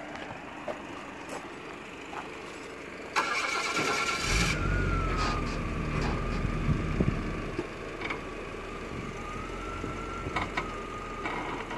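A vehicle engine is cranked for about a second, catches about four seconds in and settles into a steady idle, with a steady whine running over it.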